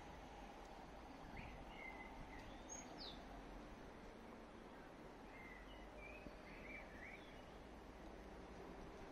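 Faint outdoor ambience with a steady low hum, and small bird chirps in two short clusters, a second or so in and again past the middle.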